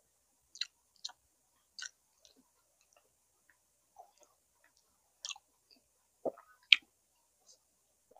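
Close-up chewing of food with scattered wet mouth smacks and clicks. A dull knock is followed by one sharp, loud click near the end.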